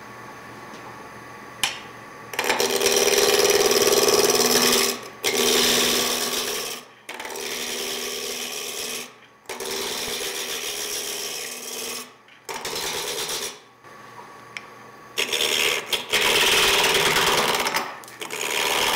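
Spindle roughing gouge cutting a spinning walnut block on a wood lathe, rounding the square blank into a cylinder. After about two seconds of the lathe running alone, there are about seven cutting passes of one to three seconds each, with short pauses between them where only the lathe's quieter hum remains.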